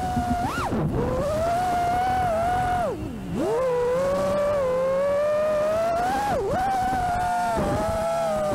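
FPV freestyle quadcopter's brushless motors whining in flight, the pitch holding steady and then dropping sharply and swinging back up several times, deepest about three seconds in, as the throttle is chopped and punched through flips and loops.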